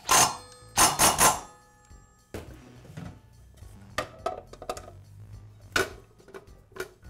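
Metal hand tools and saw parts clinking and rattling as the blade screw is fitted and tightened on a metal-cutting saw. Three loud metallic clanks with a short ring come in the first second and a half, followed by lighter knocks and clicks.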